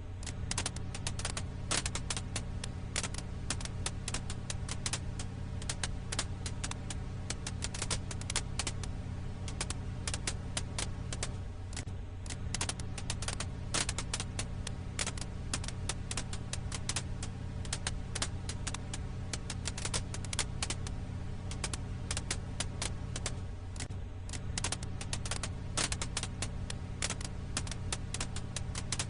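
Firewood crackling in a campfire: dense, irregular pops and snaps over a steady low hum.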